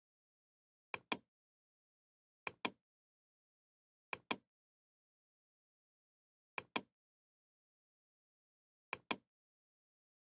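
Computer mouse clicking: five sharp double clicks spaced about two seconds apart, with dead silence between.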